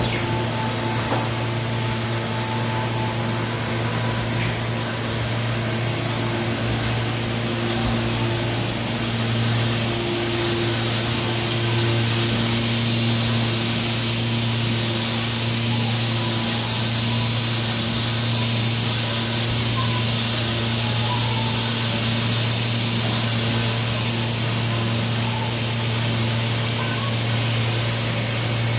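Factory machinery in a print shop running steadily: a low hum with a few steady tones over it and a broad hiss, and a faint, regular ticking.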